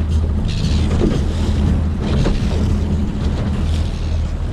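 A small fishing boat's motor running steadily as the boat moves across the harbour, with wind on the microphone and water rushing along the hull.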